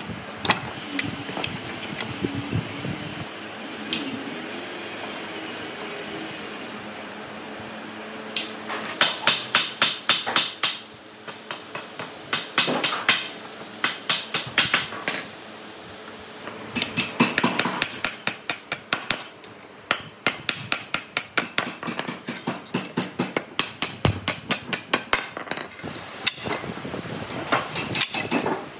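Hammering on wood: after a quieter first several seconds, runs of rapid blows at about five a second, with short pauses between the runs.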